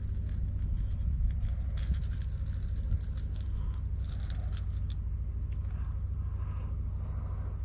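Light clicks and rattles of a hard plastic fishing lure and its treble hooks being handled while line is tied on, mostly in the first few seconds, over a steady low rumble.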